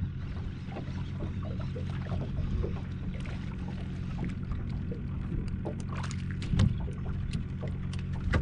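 Steady low motor hum aboard a small fishing boat, with light ticks and splashes building in the last couple of seconds as a hooked speckled trout is reeled in on a float rig.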